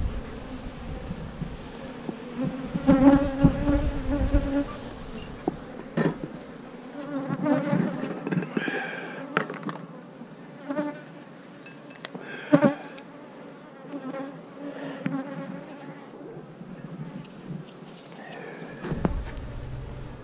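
Honeybees buzzing around an opened hive, the buzz swelling and fading as bees fly close past, with a few sharp knocks from the hive being worked, the loudest about twelve seconds in. The colony is disturbed and unsettled by the hive being opened.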